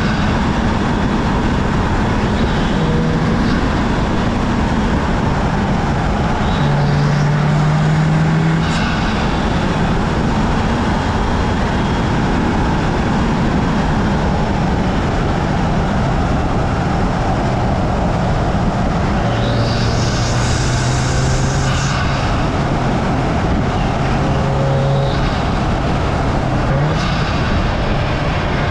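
Audi S3's turbocharged 2.0-litre four-cylinder running at a steady cruise under heavy wind and tyre noise, its engine drone stepping up and down in pitch a few times. A brief hissing whoosh about two-thirds of the way through.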